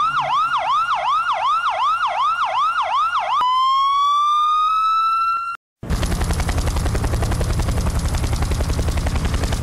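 Police-style siren sound effect opening a music track: a fast yelp of about three sweeps a second, switching after about three seconds to a slow rising wail. It cuts off briefly, then a fast, pulsing bass-heavy buzz takes over.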